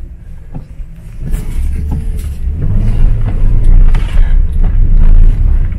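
An old, high-mileage truck's engine revving hard under acceleration, heard from inside the cab. It builds from a low rumble to its loudest in the second half as the truck is flung into a drift.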